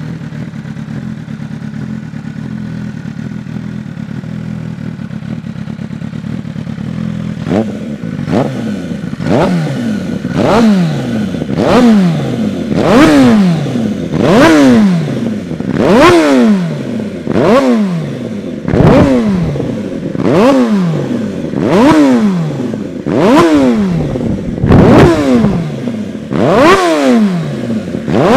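MV Agusta F4 inline-four engine through a Hurricane Evolution Oxy Carbon exhaust, loud: it idles steadily for about seven seconds, then is blipped over and over, a sharp rev about every second and a half, each one falling back toward idle.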